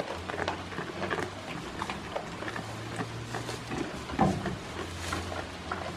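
Goats pulling hay from a metal hay rack and chewing it: irregular rustling and small crunching clicks, with one louder knock about four seconds in. A low steady hum lies underneath.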